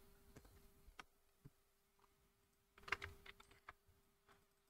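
Faint computer keyboard typing: a few scattered keystrokes, then a short quick run of them about three seconds in.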